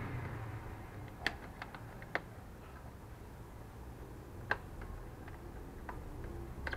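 A handful of light, scattered clicks and ticks of a folding knife and stiff plastic packaging being handled while a small package is cut open.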